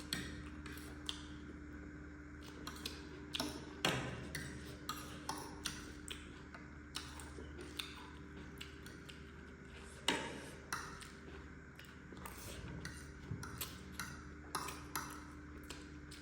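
Eating sounds: chewing of spicy noodles and eggs, with scattered clicks of a utensil against the dish. Two louder knocks come about 4 and 10 seconds in, over a faint steady hum.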